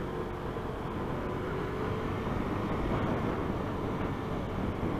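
Steady motorcycle riding noise: engine and road rumble mixed with wind, with a faint steady engine tone.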